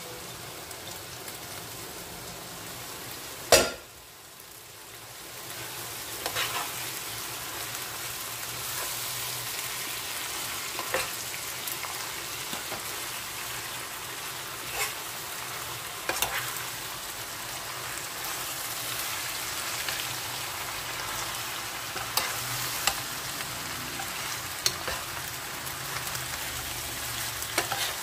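Chopped leafy greens sizzling and frying in a hot pan while a spatula stirs them, with scattered light clicks of the spatula against the pan. One sharp knock about three and a half seconds in is the loudest sound; the sizzle dips after it and builds back up over the next couple of seconds.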